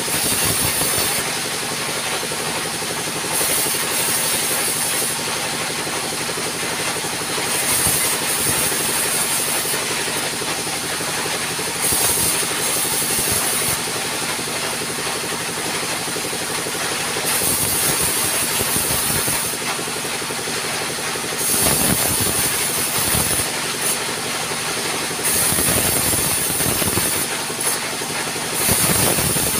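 Sawmill band saw running steadily, with a sharper hiss each time the blade cuts through the log, repeated every few seconds as the wood is fed back and forth for successive board cuts.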